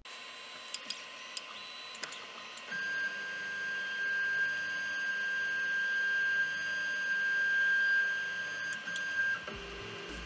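Creality Ender 3D printer running a print: its motors whine in a steady high tone with lower tones that shift in pitch, over a steady hiss. The whine starts about two and a half seconds in and drops away near the end.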